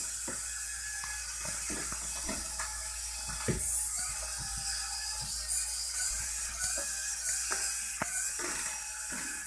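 Small Arduino robot's DC gear motors whirring steadily as it drives, with irregular clicks and knocks from the chassis and bumper.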